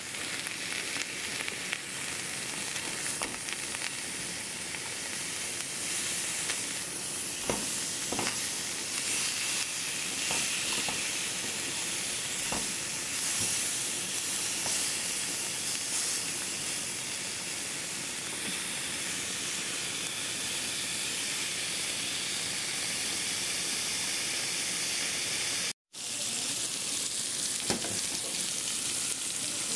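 Pork pieces sizzling steadily as they fry in a pan without oil, in their own fat and lemon juice. A few light knocks of a spatula in the pan come in the middle, and the sound drops out for an instant near the end.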